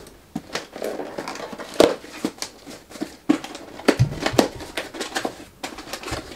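A small cardboard shipping box being handled and its flaps pulled open: irregular clicks, scrapes and rustles of cardboard, with a few louder knocks.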